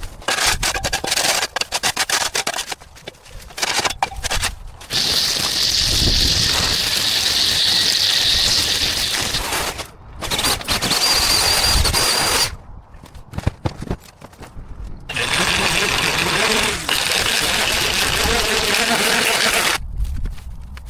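A powered garden tool running in bursts of several seconds each, with short pauses between them and some clattering of cutting work before the first long run.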